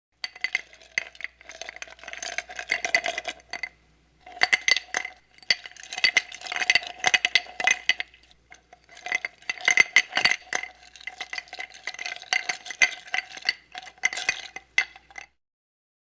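Rapid clinking and rattling of hard objects, like dishes or cutlery knocking together, with a ringing tone under the clicks. It comes in three long bouts with short pauses between them.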